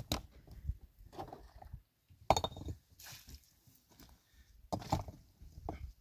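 A few sharp knocks and clinks of hard objects at uneven intervals, the loudest about two seconds in.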